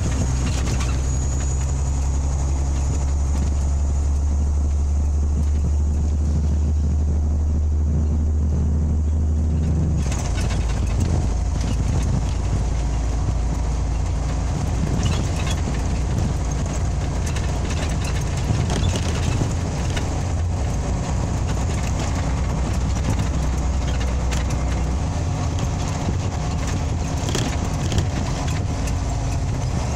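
Scania OmniLink CL94UB city bus heard from inside the cabin: the engine runs with a steady low hum for about ten seconds, then the bus is under way, with engine, road noise and short rattles of the cabin fittings.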